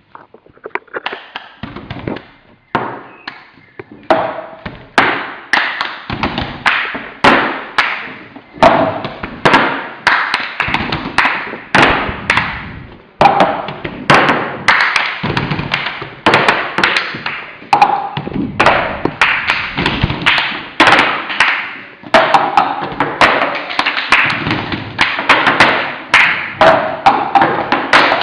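Cup-game rhythm: hands clapping and tapping, and cups being knocked and slammed down on a table in a repeating pattern that starts sparse and fills out about four seconds in.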